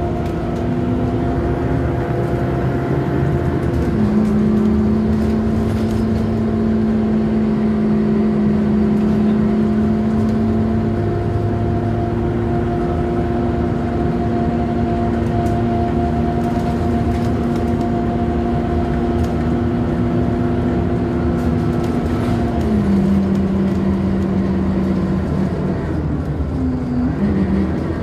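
Scania K230UB city bus heard from inside the passenger cabin, driving along with its engine and ZF automatic gearbox giving a steady whine over road noise. The pitch steps down about four seconds in and again a few seconds before the end, then slides down near the end as the bus slows.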